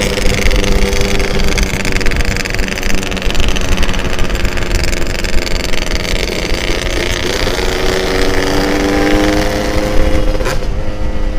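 Yamaha RX-King's two-stroke single-cylinder engine running under way, with wind noise over the microphone. The engine note shifts in pitch about seven to eight seconds in.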